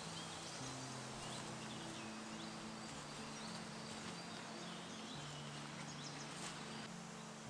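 Slow, low held music notes that change in steps, with small songbirds chirping over them and a steady outdoor hiss.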